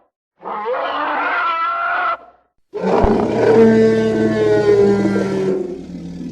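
Two designed creature roar sound effects: a first call of about two seconds whose pitch rises and wavers, then after a short silence a longer, louder roar of about three seconds that tails off near the end.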